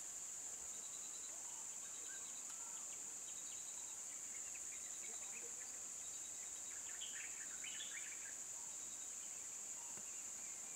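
Steady high-pitched drone of insects. Faint repeated ticking runs alongside it, and a brief flurry of chirps comes about seven seconds in.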